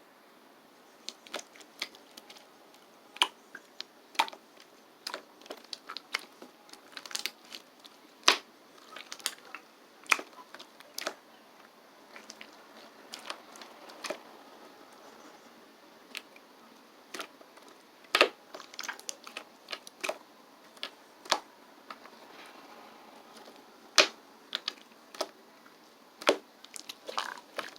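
Slime being squeezed and pressed by hand, giving irregular sharp clicks and pops as air pockets burst.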